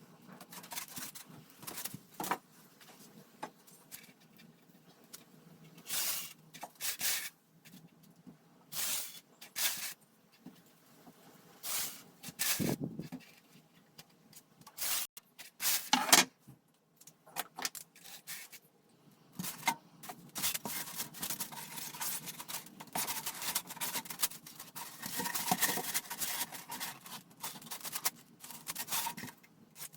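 Hand crafting work on the model: scattered short scrapes and rustles, then steady rubbing or scraping from about two-thirds of the way through.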